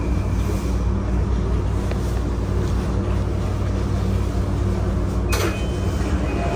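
Running noise inside a JR E235 series commuter train car as it comes into a station and stops: a steady rumble with the low hums of its Mitsubishi full-SiC VVVF traction drive. There is a sharp clack about five seconds in.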